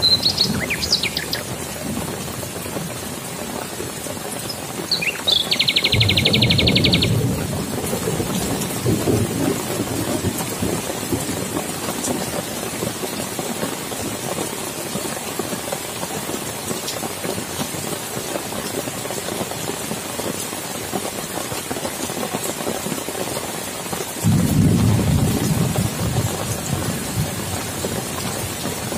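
Heavy rain falling steadily on leaves, grass and standing water, with low rolls of thunder about six seconds in and again near the end. A bird calls at the start, and a short rapid high trill sounds about five seconds in.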